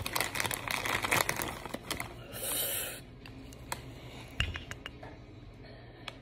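Crinkly rustling and scraping as a Cheeto and a clear plastic cup of habanero sauce are handled, densest in the first two seconds, then a short swish and a few light clicks and taps, with one dull thump about four and a half seconds in.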